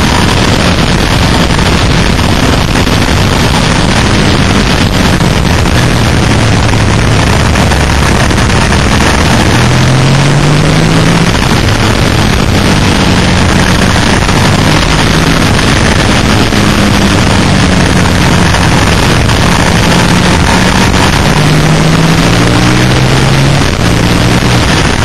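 Suzuki SV650's V-twin engine running hard on a track lap under heavy wind rush on the bike-mounted microphone. The engine note climbs as it accelerates, about ten seconds in and again around twenty-one seconds.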